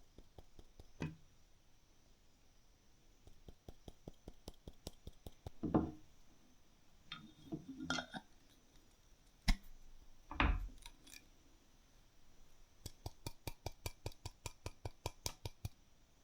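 Hard objects being handled: scattered clicks and light clinks, a sharp knock and a couple of dull thuds midway, then a quick run of regular clicks near the end.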